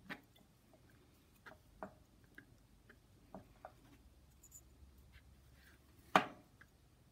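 Faint scattered clicks and taps of a small plastic chip module and a bare knife blade being handled, with one sharper click about six seconds in.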